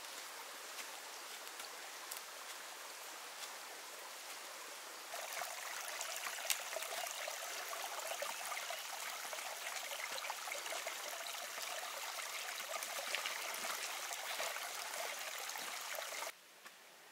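Running water, a steady rushing trickle that gets louder about five seconds in and drops away abruptly near the end.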